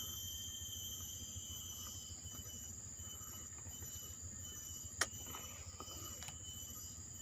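A single sharp shot from an air rifle about five seconds in, with a fainter click just over a second later. Insects keep up a steady high-pitched drone throughout.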